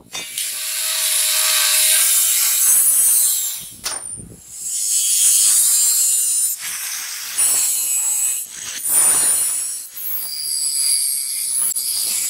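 Angle grinder cutting into the hardened steel of an old circular saw blade with a thin cut-off disc: a loud, high hissing grind that starts with the motor's whine, breaks off about four seconds in as the disc is lifted, then resumes with a few brief dips.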